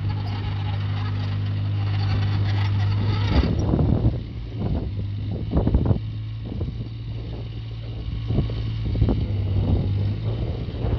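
Takeuchi TB016 mini excavator's diesel engine running steadily while the hydraulics work the boom and bucket. The hydraulic load eases about three and a half seconds in, and a series of knocks and clanks from the arm and bucket follows.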